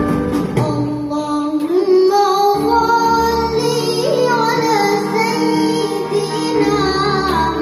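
A child singer performing a melody with a live orchestra, strings holding sustained chords beneath; the voice enters about two seconds in.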